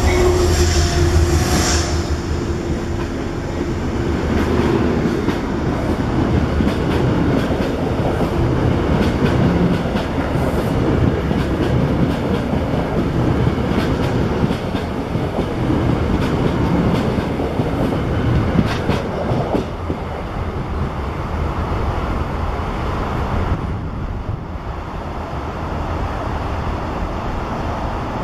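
A locomotive-hauled passenger train passing close by. The locomotive goes by at the start with a steady tonal whine, then the coaches' wheels clack over the rail joints in a continuous rumble, which eases after about twenty seconds as the train moves away.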